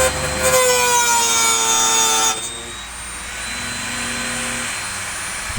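Handheld power tool motor running under load, its pitch sagging slowly as it cuts, then stopping abruptly a little over two seconds in; a fainter steady hum carries on afterwards.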